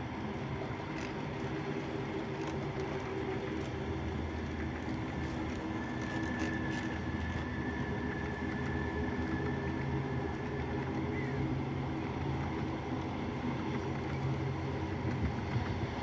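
Dubbed-in sound of a full-size diesel locomotive engine running steadily with a low drone. A faint thin high whine sits over it for a few seconds in the middle.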